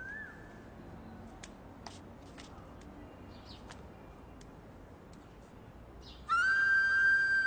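Faint outdoor background with scattered short bird chirps and clicks. About six seconds in, a loud held flute note of background music comes in.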